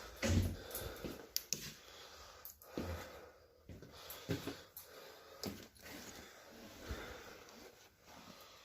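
A man breathing close to the microphone, with a few dull knocks scattered through it.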